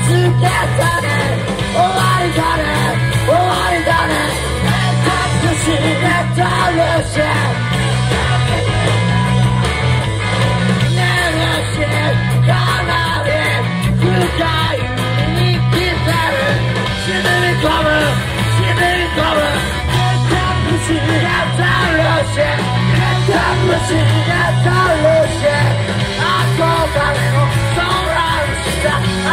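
Live rock band playing loud and steady, with drums, bass guitar and a shouted, yelling vocal.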